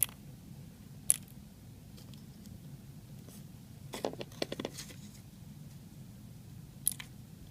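Small metal pins and springs from a door-knob lock core clicking and clinking as they are tipped out onto a hard surface. There are single sharp clicks near the start, about a second in and near the end, with a short cluster of clinks with brief ringing about four seconds in.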